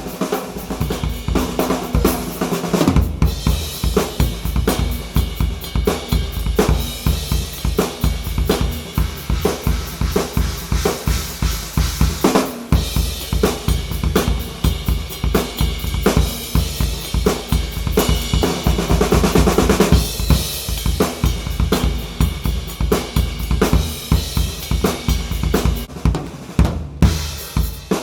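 Sakae Trilogy drum kit, hand-made 3-ply maple/poplar/maple shells, played in a steady groove: unmuffled bass drum, Ludwig bronze snare, hi-hats and Paiste cymbals. The playing pauses briefly near the end before picking up again.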